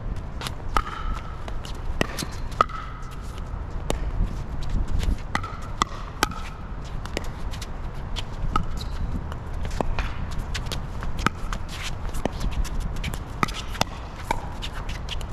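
Pickleball paddles hitting the ball during a rally: sharp pops at irregular intervals, several of them with a short ring, along with shuffling footsteps on the court and wind rumbling on the microphone.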